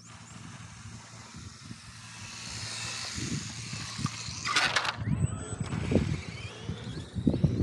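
Electric radio-controlled car's motor whining, with tyre noise on asphalt, building as it approaches and passing close by about four and a half seconds in. After that the motor's pitch glides up and down as it drives on.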